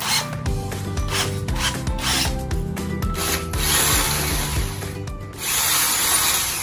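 Bosch GSB 180-LI 18 V cordless drill boring into a concrete wall with a 3/8-inch masonry bit, widening an existing hole. The motor whirs under the grinding of bit on concrete in uneven spurts, dropping off briefly about five seconds in.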